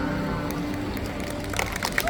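The last held chord of the music dying away, then an audience starting to clap about one and a half seconds in.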